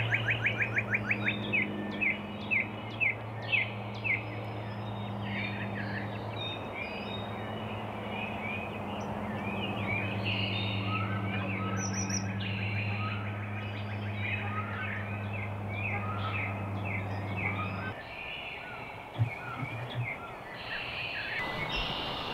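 Wild songbirds chirping and calling in many short, downward-sweeping notes. A steady low hum runs underneath and stops about three-quarters of the way through.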